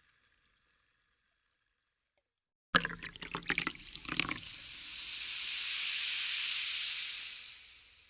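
Water pouring: it starts suddenly about a third of the way in with irregular splashing spurts, settles into a steady stream, and fades away near the end. Before it, the tail of an earlier pour dies away into near silence.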